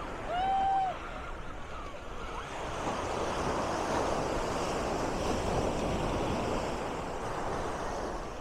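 Ocean surf on a beach: a wave breaks and washes up the sand, swelling about two and a half seconds in and easing off near the end, with wind on the microphone. Near the start, a single short high call, the loudest sound, cuts through.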